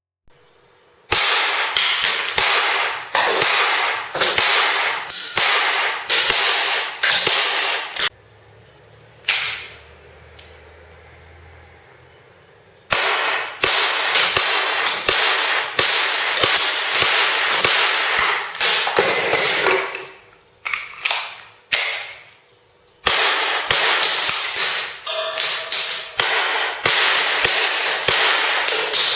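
Cap-firing model gun (Taniokoba GM7 with a B.W.C. 3.8-inch slide, open-cartridge type) shooting blowback in rapid strings of sharp bangs, each with a short echoing tail. There is a pause with a single shot between about 8 and 13 seconds in, then rapid firing resumes.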